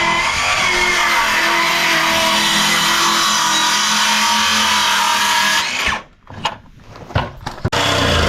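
A power tool runs steadily for about six seconds, then stops; after a few knocks, a lower-pitched machine starts up near the end.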